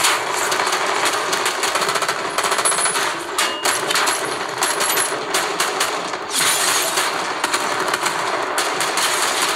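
Film soundtrack of a gunfight: sustained rapid automatic gunfire, many sharp shots a second with hardly a break.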